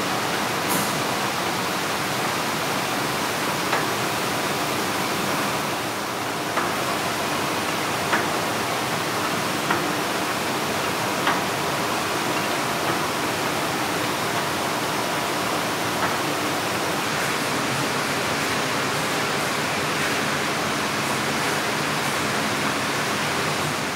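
Steady rushing noise of a motor-driven mixing kettle and surrounding factory machinery, with light clicks about every one and a half seconds as the paddle turns.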